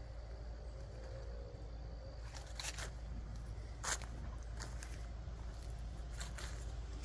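A few short rustling crackles, in a cluster about two and a half seconds in, another near four seconds and more just after six, over a low steady rumble.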